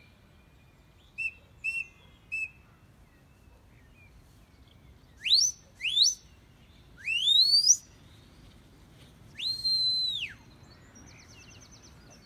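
Shepherd's sheepdog whistle commands to working border collies. Three short pips come first, then two quick upward swoops, a longer rising swoop, and a held high note that drops away at its end.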